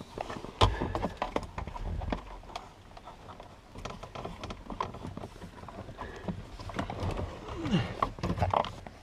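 Handling noise inside a car footwell: irregular clicks, knocks and rustles as wiring, plastic trim and carpet are moved by hand, with a short falling creak near the end.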